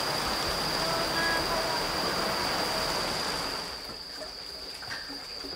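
Rushing water of a stream flowing under a footbridge, a steady rush with a constant high-pitched tone over it. About three and a half seconds in the water sound drops away to a quieter trickle.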